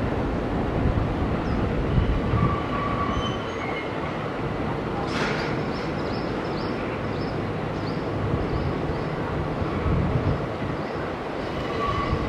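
Kintetsu 8400 series electric commuter train pulling into the station, its wheels rumbling steadily over the track, with a few brief high squeals.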